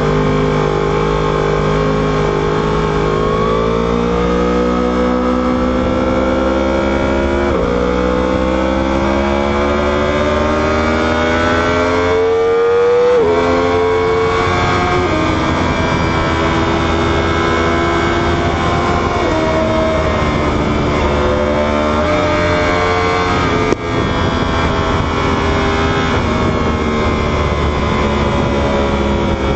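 Inline-four superbike engine accelerating hard through the gears. Its pitch climbs, drops sharply at upshifts about 7 and 13 seconds in, then holds fairly steady at speed with a few small changes.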